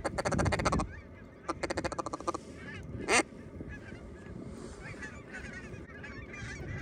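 Geese honking as a flock comes in: two bursts of rapid clucking calls in the first two and a half seconds, one loud rising honk about three seconds in, then fainter chattering honks.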